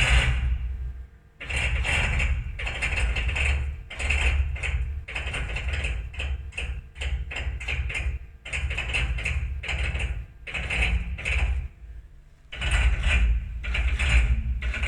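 Haas CNC mill's Z axis jogged up and down in short steps, clicking during each move: a fault noise that started after the spindle struck the tool magazine. The bursts come one after another with brief gaps, pausing longer near the start and again near the end.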